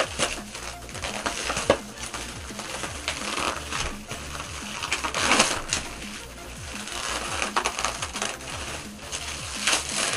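Black plastic wrap being torn and pulled off a box by hand: a steady crinkling and crackling of the plastic, with a few sharper rips.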